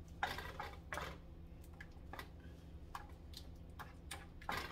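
Wooden spoon stirring a thick cream-cheese sauce in a nonstick skillet, making irregular light taps and scrapes against the pan. A steady low hum runs underneath.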